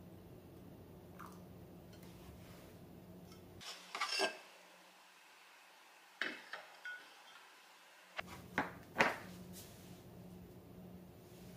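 Glass coffee server and ceramic mug handled on a wooden counter: a few light clinks and knocks of glass on ceramic and wood, in three small clusters about four, six and nine seconds in, over a low room hum.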